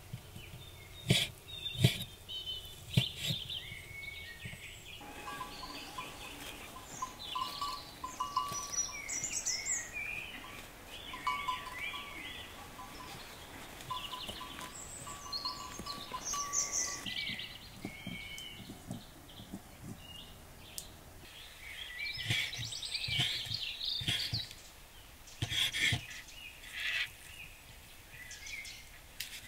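A knife chopping sheep tail fat on a wooden cutting board: a few sharp knocks near the start and another run of them late on, with birds chirping throughout.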